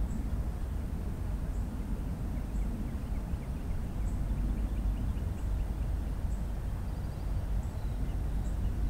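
Steady low outdoor rumble, with a bird giving a quick run of chirps midway.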